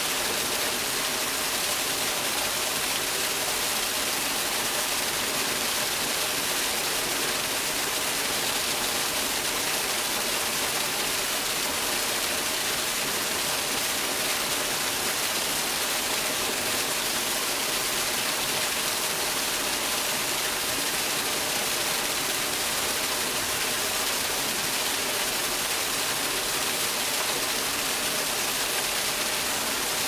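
Steady rush of water pouring down a garden waterfall, an even hiss that does not change.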